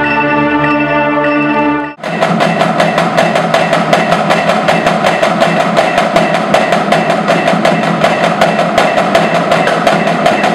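A marching band holds a sustained chord, which cuts off about two seconds in. A drumline then plays a fast, even pattern of strokes that keeps going to the end.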